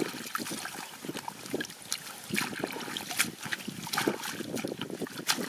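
Hands groping through a shallow, muddy puddle, with irregular squelches, sloshes and trickles of water.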